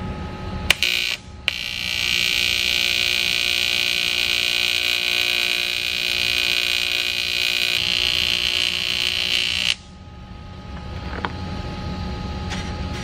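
AC TIG welding arc buzzing steadily on cast aluminum. It catches with a short crackle about a second in, holds an even buzz for about eight seconds, then cuts off suddenly.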